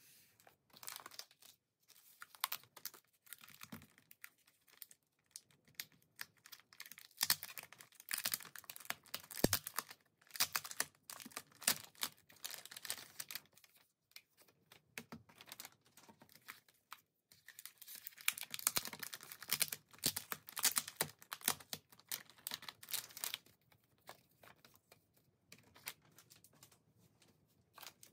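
Plastic album pouches crinkling and tearing as they are opened, mixed with rapid light clicks and clacks of plastic CD jewel cases being pulled out and set down on a wooden table. The handling comes in two busy stretches with quieter gaps between.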